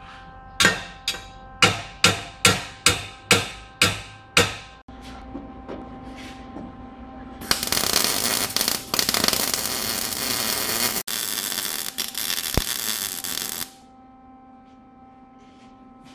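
About nine sharp hammer blows on metal, roughly two a second, each ringing briefly and dying away. A few seconds later a loud, steady hissing rush begins, lasts about six seconds and stops abruptly.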